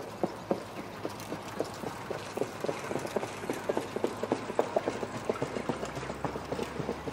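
Hooves of two harness-racing trotters pulling sulkies on a dirt track: a quick, steady run of hoofbeats, several a second.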